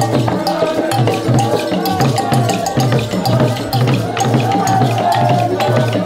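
Traditional Ndjobi ritual music: drums and wooden percussion keeping a steady repeating beat, with sharp clicks and rattles, under group singing.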